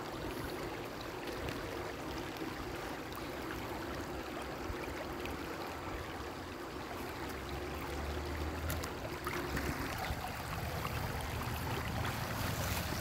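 Shallow river water flowing steadily over stones, a continuous trickling rush.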